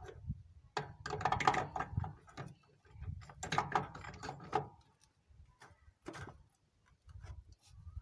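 Metal parts clinking and scraping as a scooter's CVT clutch assembly and belt are worked by hand onto the driven-pulley shaft. The clicks come in clusters, about a second in, around four seconds in, and once more near six seconds.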